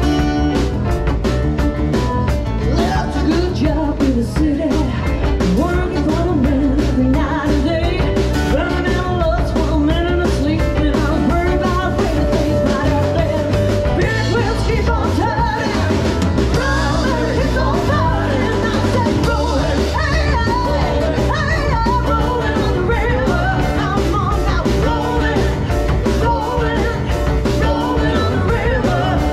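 Live rock-and-roll style song with singing over a steady beat and a strong bass line.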